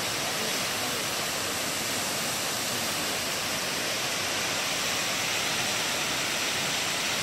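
Tall mountain waterfall, the Upper Falls of White Oak Canyon, cascading down a rock face: a steady, even rush of falling water.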